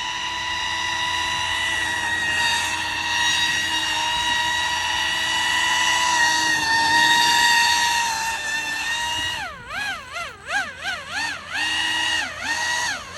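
RC airboat's electric motor and fan propeller whining at a steady high pitch, then throttled up and down in quick repeated blips over the last few seconds.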